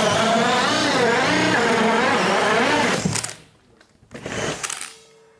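Hilti Nuron SF 10W-22 and SF 6H-22 cordless drill drivers boring 2-9/16-inch self-feed bits through three layers of OSB at full speed, their motors whining and wavering in pitch under load. Both stop about three seconds in, and one drill runs again briefly about a second later.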